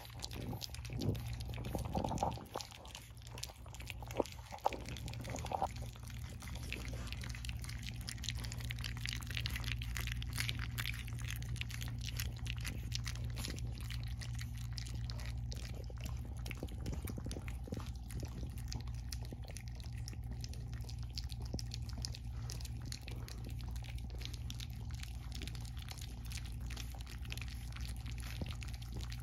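French bulldog puppies lapping and smacking soft weaning mush from a stainless steel pan: a continuous wet patter of many small licks and slurps. A few louder smacks come in the first few seconds.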